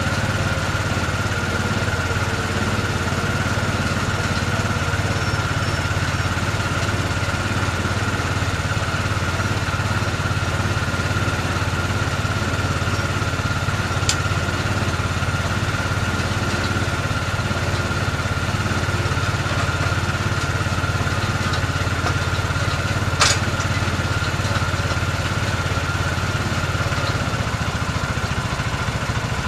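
A small engine idling steadily. Two sharp clicks sound over it, one about halfway through and a louder one about three-quarters of the way in.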